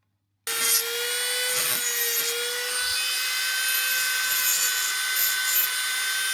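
Small high-speed power tool running with a steady high whine and a rough grinding hiss as it works the worn hole in a fishing reel's metal main plate; it starts suddenly about half a second in, with the pitch sagging slightly under load now and then.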